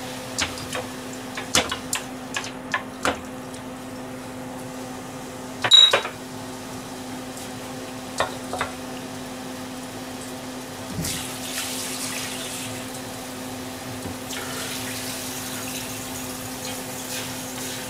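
Kitchen sink work: light clicks and knocks of stainless steel bowls and utensils, with one loud ringing clang of a metal bowl about six seconds in. Tap water runs into the sink in two stretches in the second half. A steady low hum sits under it all.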